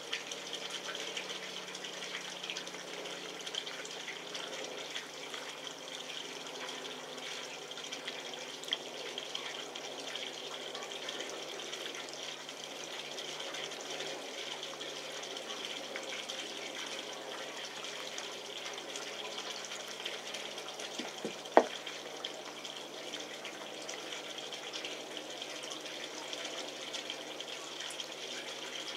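A steady hiss like running water, with one sharp click about three-quarters of the way through.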